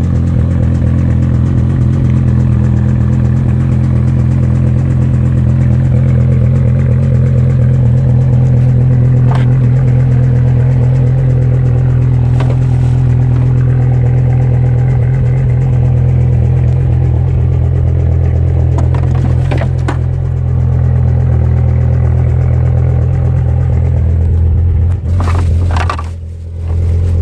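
BMW E60 M5's V10 engine running steadily at idle with a knock the owner cannot diagnose, with a few sharp clicks over it and a brief drop in level near the end.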